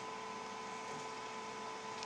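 Steady low hiss with two faint steady hum tones: room tone and recorder noise, with no distinct sound event.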